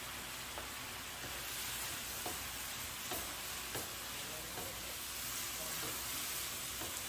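Food sizzling steadily in a hot pan, with a few light clicks scattered through.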